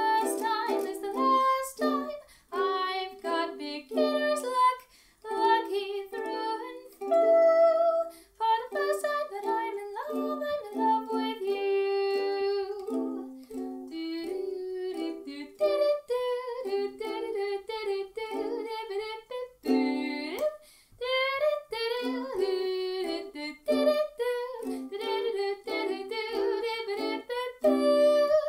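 Ukulele music: a tune picked out in plucked notes and chords.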